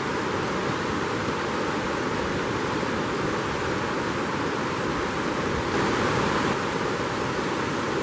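River rapids rushing over rocks: a steady, even roar of moving water that swells slightly about six seconds in.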